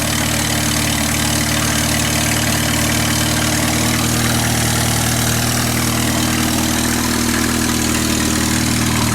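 Jaguar car engine idling steadily with its valve cover off, the rocker gear squirting up oil, after about 7000 km on vegetable oil. It runs smoothly and evenly, working as it should.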